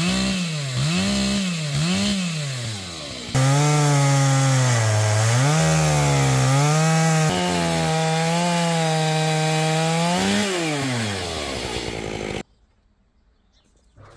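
Large two-stroke chainsaw on a chainsaw mill. It is revved up and down several times, then held at high revs cutting through a hard, fibrous beech log, its pitch dipping and recovering under load. Near the end the revs fall and the sound cuts off suddenly.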